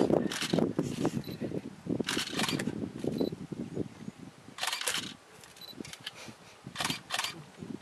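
Camera shutter clicking several times, single shots a second or two apart and some in quick pairs.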